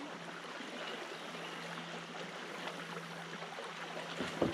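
Shallow spring-fed creek water running and rippling over a gravel riffle around a kayak, a steady rushing burble. A single sharp knock near the end.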